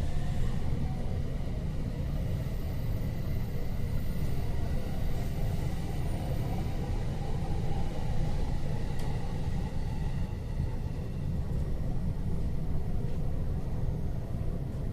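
Steady low rumble inside a commuter train car, with faint thin high tones above it.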